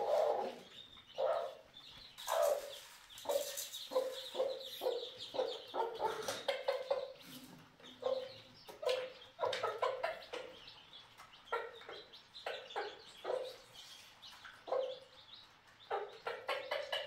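A mother hen clucking over and over to her newly hatched chicks in short, low calls, with the chicks' high peeping at times.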